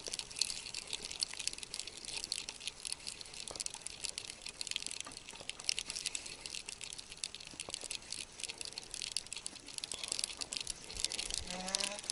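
Water splashing and dripping with a dense fine crackle, as a small hooked crucian carp is brought in to the bank.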